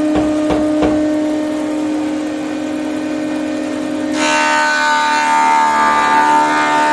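Combination jointer-planer woodworking machine running with a steady hum, with a few knocks in the first second. About four seconds in, the cutterhead starts planing wood and a louder, higher cutting sound takes over.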